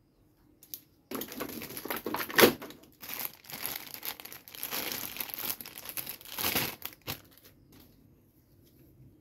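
Clear plastic wrapping bag crinkling and rustling as it is handled and pulled off a toy part, with a sharp loud crackle about two and a half seconds in. The crinkling stops about seven seconds in.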